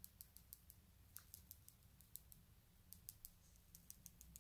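Faint, quick, irregular clicking, about four ticks a second, as a makeup brush is dabbed onto the face to apply foundation, over a low steady room hum.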